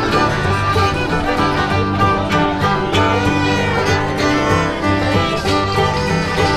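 Background music with a steady beat, overlaid on the video.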